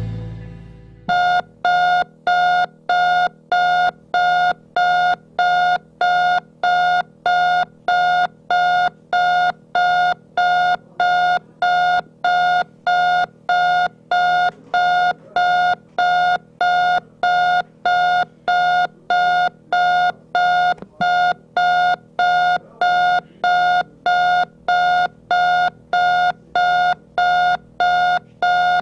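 Digital alarm clock beeping at a steady pace, about three beeps every two seconds, each beep one pitched electronic tone. Music fades out just before the beeping begins.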